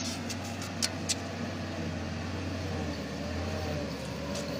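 Hino truck's diesel engine running steadily under load, with two sharp clicks or knocks just under a second in.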